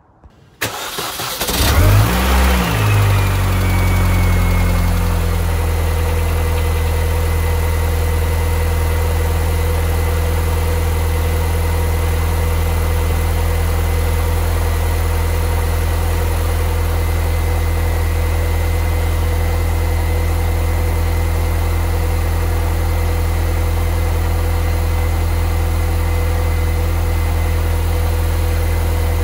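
The 1.6-litre supercharged four-cylinder engine of a 2005 R53 Mini Cooper S cranks briefly, catches about two seconds in with a short rise in revs, then settles into a steady idle. This is the first start after the supercharger bypass valve and catalytic converter were replaced, run to check for exhaust leaks.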